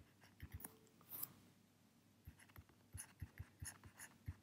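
Faint taps and short scratches of a stylus writing on a tablet screen, with a pause of about a second before a denser run of taps.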